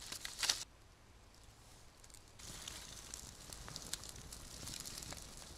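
Dry bark and wood rustling as they are handled in the first half second, then after a short lull a small campfire crackling and hissing with scattered sharp pops.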